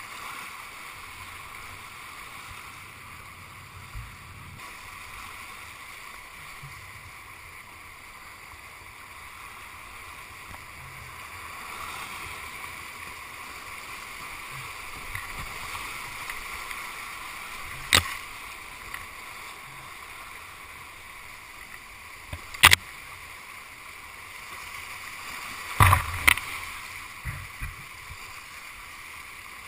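Whitewater rapids rushing steadily around a kayak, heard from a camera mounted on its deck, with a few sharp knocks in the second half, two of them close together near the end.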